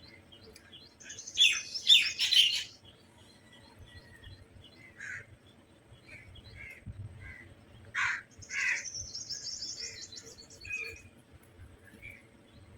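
Crows calling in a loud cluster of calls about a second in and two more calls near the middle. A smaller bird's high, rapid trill follows, with scattered fainter chirps between.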